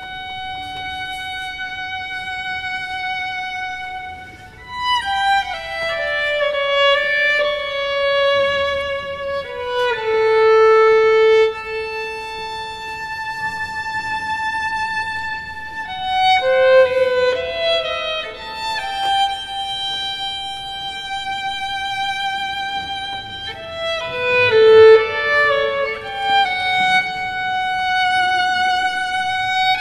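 Solo violin playing a slow melody: long held notes with vibrato, linked by short runs of notes stepping downward, swelling loudest near the end.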